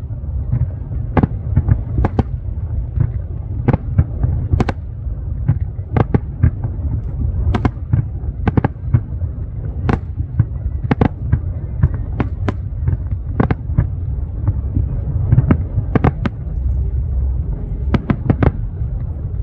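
Aerial firework shells bursting overhead in an irregular series of sharp bangs, about one or two a second, over a steady low rumble.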